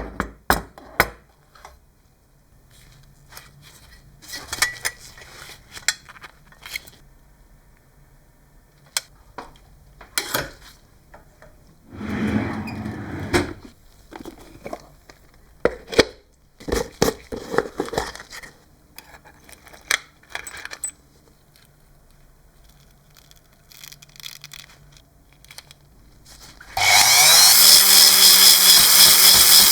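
Scattered clicks and clanks of hand tools on metal during work on a car, with a short rush of noise about twelve seconds in. Near the end a loud machine starts and runs steadily.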